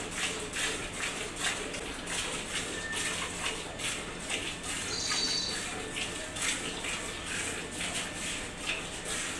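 Hand-milking a cow into a steel bucket: short hissing squirts of milk hitting the pail, about two a second in a steady rhythm as the hands alternate. A bird chirps briefly about halfway through.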